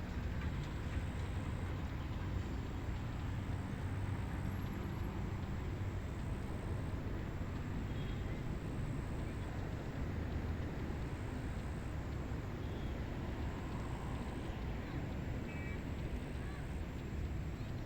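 Steady wind noise with a low rumble, and a few faint short chirps.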